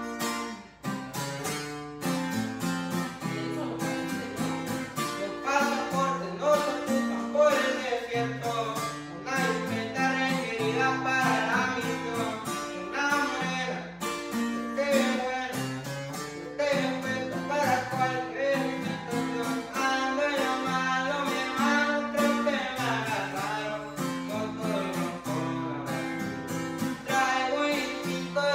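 Background music led by plucked guitars over a moving bass line.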